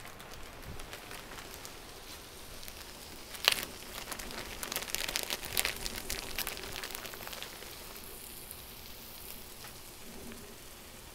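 Chicken, peppers and onions sizzling on a hot Blackstone flat-top griddle: a steady crackling hiss. There is a sharp click about three and a half seconds in, and a plastic bag of shredded cheese crinkles in the middle as it is opened and shaken out.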